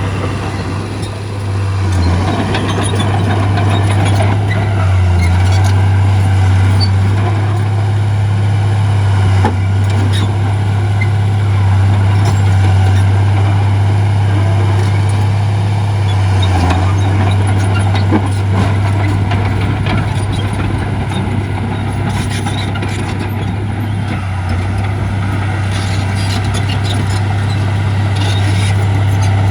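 Heavy diesel earthmoving machinery running steadily under load, a deep constant engine drone with scattered clanks and rattles over it.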